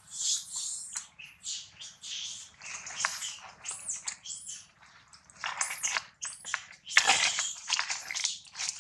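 Infant macaque squealing over and over in short, high-pitched cries, louder near the end.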